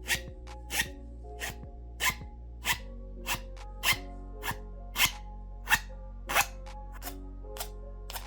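Background music with a steady beat: sharp drum hits about every two-thirds of a second over sustained chords.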